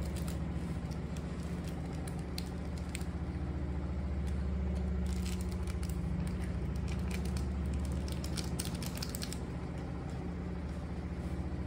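A steady low hum, with scattered faint clicks and light rustling, thickest in the middle stretch.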